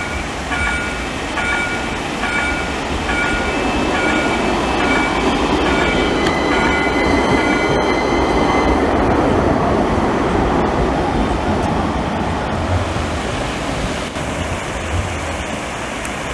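Electric low-floor tram passing close by on street track: a rumble of wheels and running gear that builds to a peak about halfway and then eases off as it pulls away. Through the first half a repeated chiming signal sounds about every 0.7 s, and a brief steady whine rises just before the tram passes.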